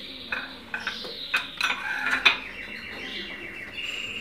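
Scattered light clinks and taps of kitchen utensils and containers being handled, with faint high chirping sounds. A steady high tone comes in near the end.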